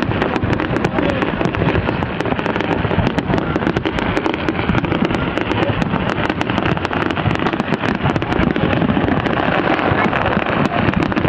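New Year fireworks display going off without a break: a dense, continuous barrage of overlapping bangs and crackles, recorded through a phone's microphone.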